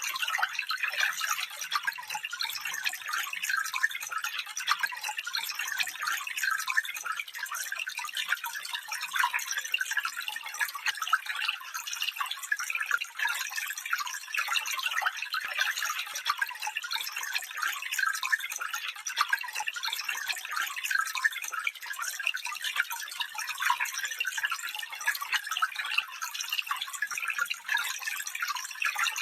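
Small stream trickling and babbling steadily, a bright, light splashing with no deep rumble.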